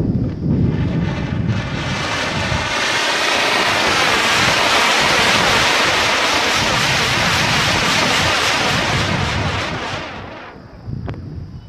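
Two anar fountain fireworks taped to the blade tips of a pedestal fan hissing as they spray sparks and spin the blades. The hiss swells over the first few seconds, holds steady, then dies away about ten seconds in.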